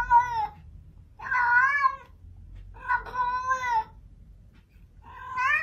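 Domestic cat meowing repeatedly: a string of drawn-out meows, each under a second long, about every second and a half to two seconds.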